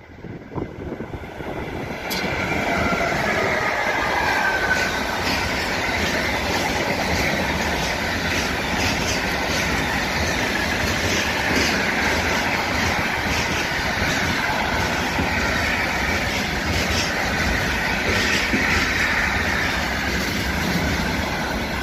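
Intermodal container freight train passing close by: the steady loud rolling noise of its wagons' wheels on the rails, with clattering clicks over rail joints. It rises sharply about two seconds in as the train reaches the microphone.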